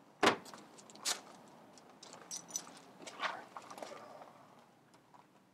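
Plastic wheelie bins being knocked and handled: one sharp bang just after the start, a second knock about a second in, then scattered smaller clatters and rustles as the bins are searched.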